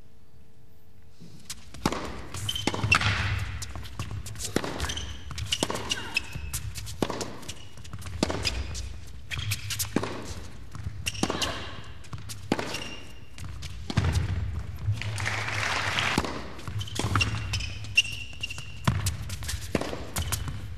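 Tennis rally: a long, steady run of sharp ball strikes and bounces, roughly one to two a second, starting about two seconds in.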